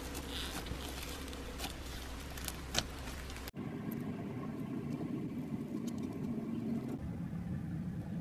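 Hands kneading slime packed with foam beads, with a few small crackles. About three and a half seconds in, a sudden cut to the wet squishing of glossy clear and rainbow slime being squeezed and pressed.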